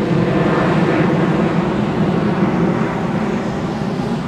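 Boeing 767-300ER's twin jet engines at climb power after takeoff: a steady low rumble that slowly fades as the airliner flies away.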